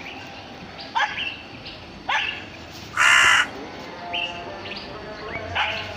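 Repeated short, harsh animal calls, about five in six seconds. Most sweep quickly upward in pitch, and the loudest is a harsh, noisy call about three seconds in.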